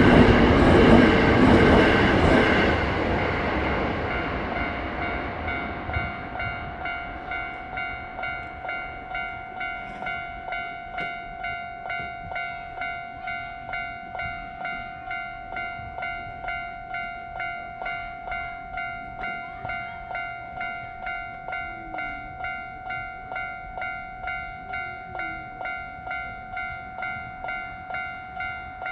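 A train running past a Japanese level crossing, loud at first and fading away within the first few seconds. Under it and after it, the crossing's electronic 'kan-kan' warning bell keeps ringing, a steady pulsing tone about one and a half strokes a second.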